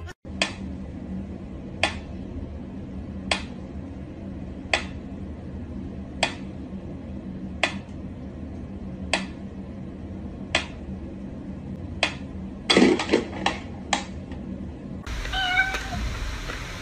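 A pet cat's sounds, with a short sharp call or click repeating evenly about every one and a half seconds over a steady low hum, then a quick run of several near the end.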